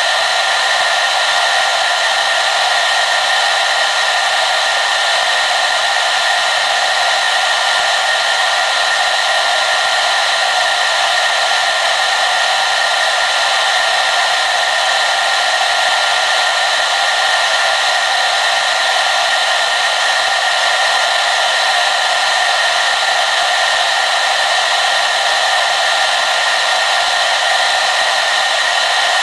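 Hair dryer running steadily at constant speed: an even rushing blow with a thin, steady whine on top, unchanging throughout.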